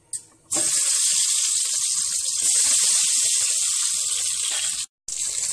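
Hot vegetable oil sizzling in a pot as boiled eggs are dropped in to fry. The sizzle starts suddenly about half a second in, stays loud and steady, and cuts out for a moment near the end before carrying on.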